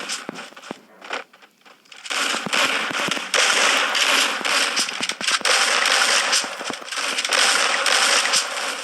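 Loud, dense crackling with many sharp pops, starting about two seconds in after a few scattered clicks.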